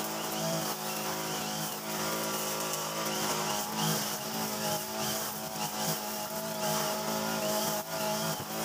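Mitsubishi backpack brush cutter engine running at working speed, spinning a nylon line trimmer head through short grass. The engine note stays steady with small repeated rises and dips as the line sweeps back and forth.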